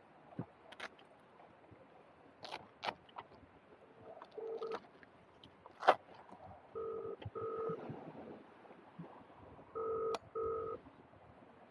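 Phone ringback tone of an outgoing call playing from a smartphone's speaker: double rings, two short beeps a fraction of a second apart, repeating about every three seconds. Sharp clicks and rustles of handling sound between the rings, the loudest a click about six seconds in.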